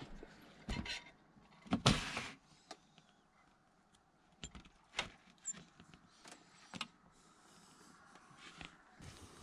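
Truck camper entry door unlatched and pushed open, with a loud clunk and rattle about two seconds in, followed by a few lighter knocks and clicks as someone steps out through the doorway.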